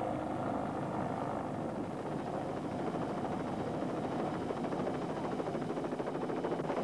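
Helicopter running steadily overhead, a continuous engine-and-rotor noise with a fast, even flutter.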